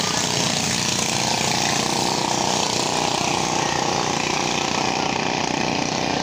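Engines of two racing banca outrigger boats, one 14 hp and one 12 hp, running flat out in a steady, rapid buzz.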